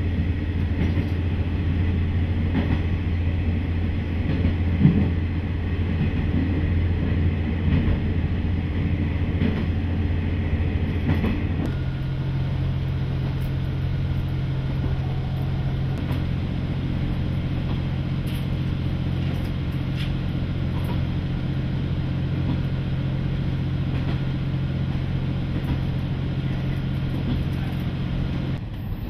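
Inside a KiHa 40 diesel railcar under way: a steady low diesel engine drone with wheel and rail running noise. About twelve seconds in, the engine note steps up to a higher pitch and holds there.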